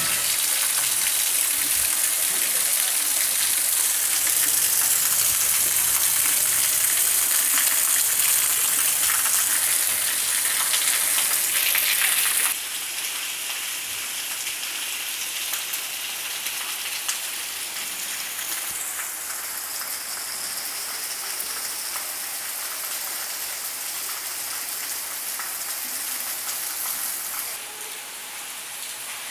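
Torrential monsoon rain falling in a steady hiss. The level drops abruptly about twelve seconds in and again near the end.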